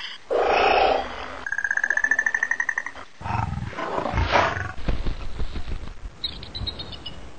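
A string of cartoon sound effects: a short loud noisy burst, then a steady pulsing high tone for about a second and a half, then low rumbling sounds, and a brief falling whistle near the end.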